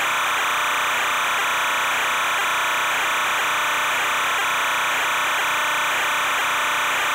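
Steady, even hiss with no distinct events: the background noise of the ROV's video recording.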